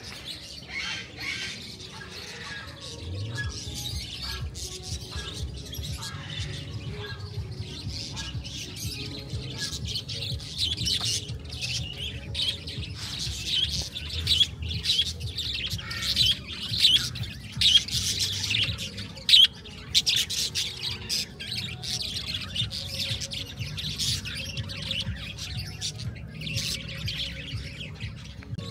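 Many caged birds and parrots calling at once, a dense mix of chirps and squawks that grows busiest and loudest around the middle.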